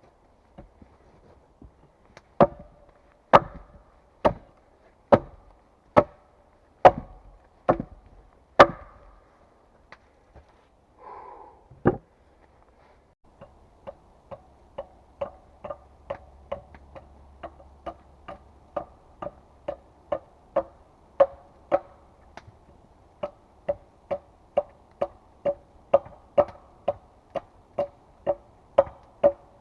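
Hand tool striking wood in steady blows: about eight heavy strikes roughly a second apart, then, after a short scrape and pause, a longer run of lighter, faster strikes about two a second with a slight ring.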